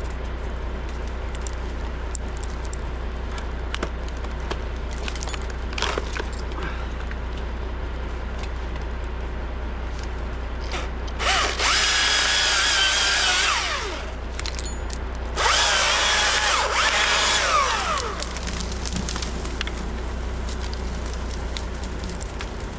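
Chainsaw revved up twice in the tree, each burst lasting about two and a half seconds, with its pitch falling as it drops back off the throttle. A steady low engine hum runs underneath.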